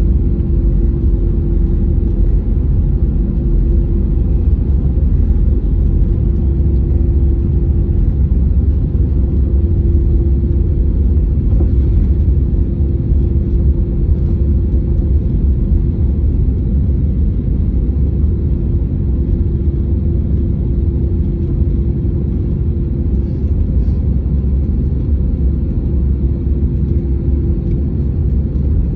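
Steady low vehicle rumble, with a faint hum that comes and goes.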